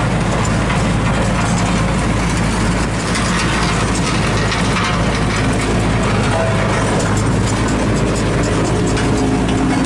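Old Sakai R2 tandem roller's engine running steadily, heard close up from the operator's seat.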